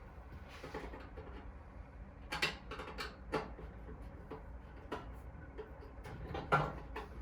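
Scattered small clicks and light metal knocks as bolts are tightened on the gas patio heater's parts, with the loudest knock about six and a half seconds in.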